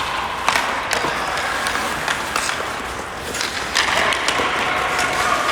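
Ice hockey game in a rink: steady crowd noise with a few sharp knocks scattered through.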